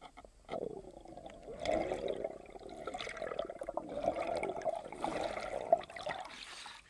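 Muffled underwater gurgling and bubbling from a diver swimming, heard through a submerged camera, with scattered small clicks; it starts about half a second in.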